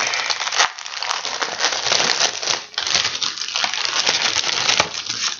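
Clear plastic packaging crinkling and rustling as it is handled and opened, with many small crackles.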